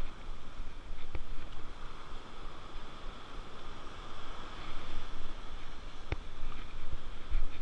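Surf washing up a sandy beach, with wind buffeting the microphone. A few sharp knocks, about a second in and again about six seconds in, come from handling of the phone.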